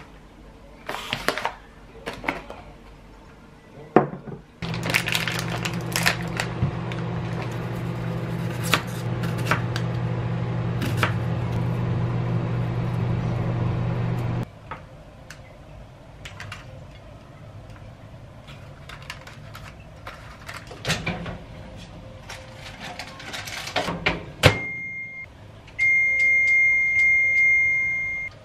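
Plastic bag rustling, then a microwave oven running with a steady electrical hum for about ten seconds. Scattered taps and clicks follow as an onion is sliced on a plastic cutting board. Near the end an air fryer oven's control panel gives a short beep and then a long, steady high beep.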